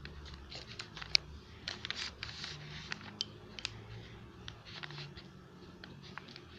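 Homemade laundry-detergent slime being worked and stirred, giving irregular sticky clicks and small pops, the sharpest about a second in.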